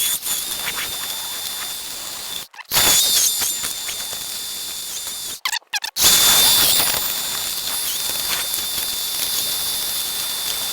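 An electric power tool running steadily with a high whine over a hiss as it works a piece of hard manzanita wood. The sound cuts off abruptly twice and starts again.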